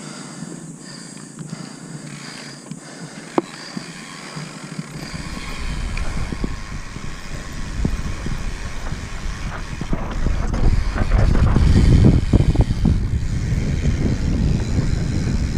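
Santa Cruz Megatower mountain bike rolling down a dirt trail: tyre noise and rattling knocks over bumps, with wind rumbling on the camera microphone from about five seconds in and growing louder as the bike picks up speed.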